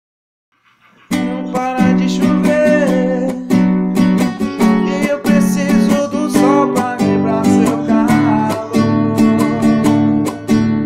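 Acoustic guitar strummed in a steady rhythm, starting about a second in after near silence.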